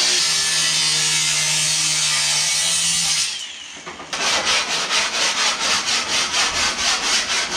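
Rock music with sustained guitar notes, then, after a short drop in level, a hand tool scraping back and forth in quick even strokes, about four a second.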